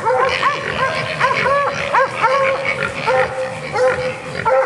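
Bay dogs barking fast and continuously at a bayed-up feral hog, several dogs' barks overlapping in a rapid stream.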